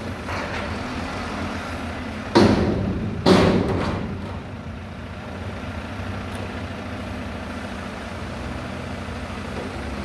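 Mack McNeilus front-loader garbage truck's diesel engine running steadily, with two loud metal bangs about a second apart as the dumpster is emptied over the cab.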